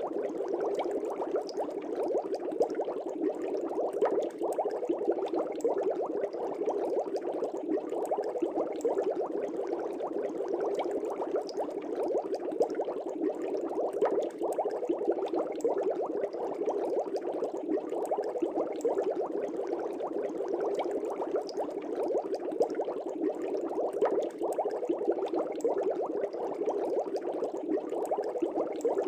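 Air bubbles bubbling steadily in aquarium water, a dense, continuous stream of fine bubbling pops.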